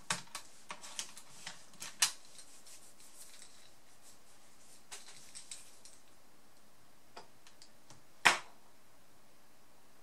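Small clicks and taps of a screwdriver and fingers working inside an opened Toshiba Satellite Pro A300 laptop. A quick run of clicks comes in the first two seconds, then a few scattered taps and one louder knock about eight seconds in.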